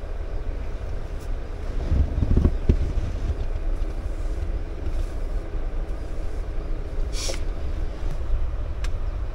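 Steady low rumble, louder for a moment about two seconds in, with a short sharp swish about seven seconds in as bedding is moved.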